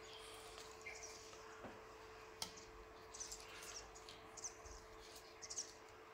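Quiet room tone with a steady faint hum, scattered short high chirps or squeaks, and a light click about two and a half seconds in.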